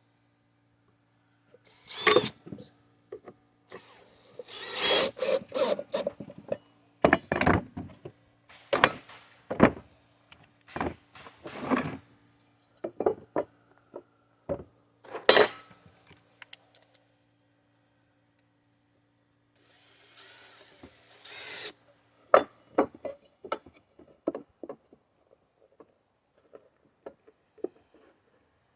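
Wooden boards and hand tools being handled and set down: a string of sharp knocks and clatters with short stretches of rubbing, and quiet pauses between.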